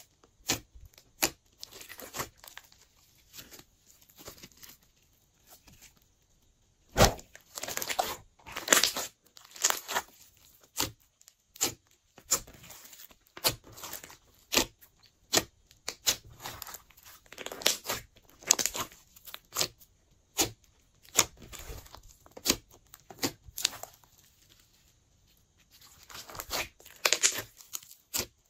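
Glossy slime being squished and stretched by hand, giving an irregular run of sharp, sticky crackles and pops. There are brief pauses about six seconds in and again near the end.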